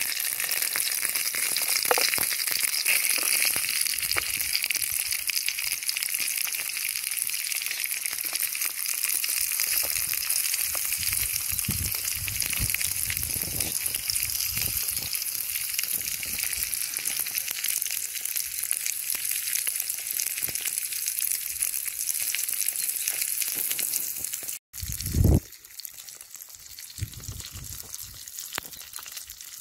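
Chorizo slices frying in oil in a Trangia frying pan: a steady sizzling hiss. About 25 seconds in the sound drops out for an instant, a single loud thump follows, and the sizzle carries on more quietly.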